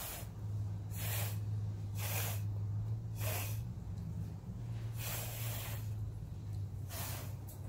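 Short puffs of breath blown through a straw onto wet acrylic paint to push it across the canvas. There are about six blows roughly a second apart, one of them longer, over a steady low hum.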